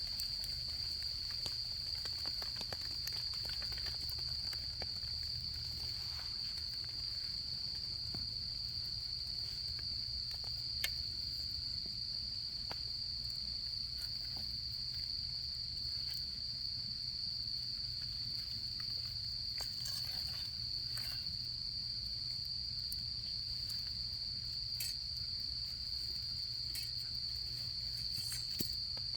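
A steady, high-pitched chorus of autumn crickets trilling without a break, over the scattered pops and crackles of a wood campfire. The sharpest crackles come about 11 seconds in and near the end.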